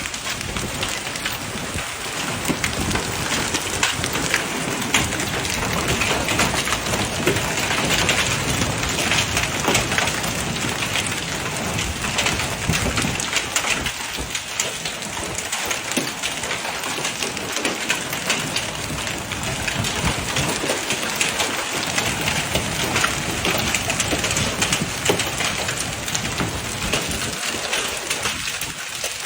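Heavy rain falling: a steady, dense hiss full of fine drop impacts.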